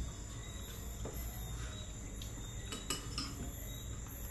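Insects chirping steadily in the background, a high pulsing trill. A couple of light clinks of a metal spoon against a soup bowl come about three seconds in.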